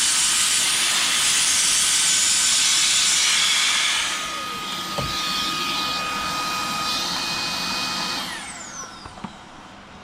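High-speed electric air tool rushing air loudly for about four seconds, then running quieter with a steady whine. It is switched off about eight seconds in and winds down with a falling pitch. A click comes about five seconds in.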